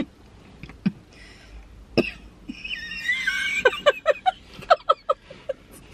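A woman laughing in fits: a couple of short, sharp breaths early on, then a high wavering squeal of laughter about three seconds in that breaks into a run of quick, short laughs.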